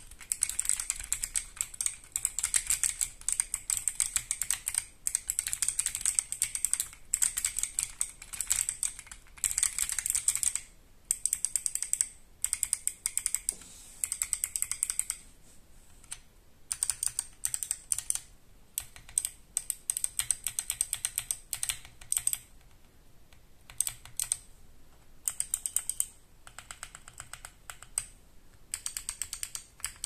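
Akko Mod007v2 mechanical keyboard with clicky Kailh Box Jade switches being typed on: fast, continuous typing for about the first fifteen seconds, then short runs of keystrokes and single key presses with pauses between them.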